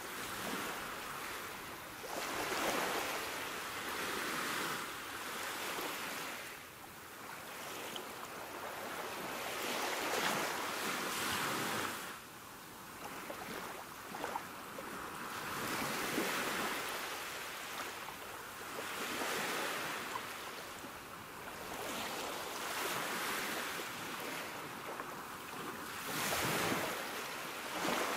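Sea waves breaking and washing in, one surge swelling and fading every few seconds.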